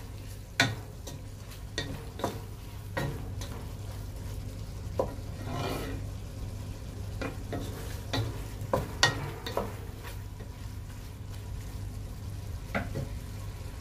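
Wooden spatula scraping and knocking against a pot at irregular moments as pork and carrots sauté in oil, with a faint sizzle and a low steady hum underneath.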